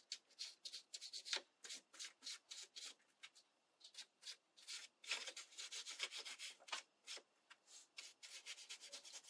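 Faint, quick swishes of a flat paintbrush stroking a thin watercolour wash onto book-page paper petals, several strokes a second with a couple of brief pauses.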